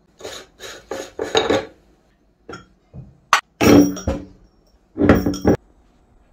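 Meat grinder crunching Magnum ice cream bars: a series of short crunching, clinking bursts, four quick ones at first, then two longer, louder ones.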